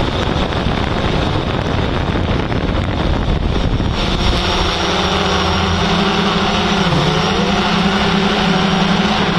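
Wind rushing over the microphone, then from about four seconds a steady motor hum that dips briefly in pitch near seven seconds.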